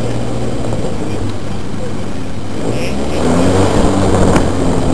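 Electric model airplane's motor and propeller running with a steady low hum and airy noise, heard from a camera on the plane; it grows louder about three seconds in as the throttle comes up.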